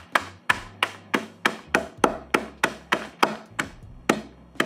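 A wooden rolling pin beating Doritos tortilla chips in a zip-top plastic bag on a wooden cutting board, crushing them to a coarse crumb. The strikes come sharp and steady, about three a second.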